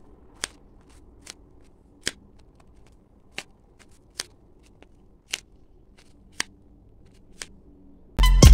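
Eight short, sharp clicks, roughly one a second, from hands working craft materials with little else audible between them.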